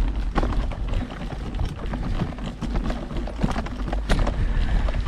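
Mountain bike riding a forest trail, with a steady low wind rumble on the microphone and irregular knocks and rattles from the bike over the ground, the loudest about four seconds in.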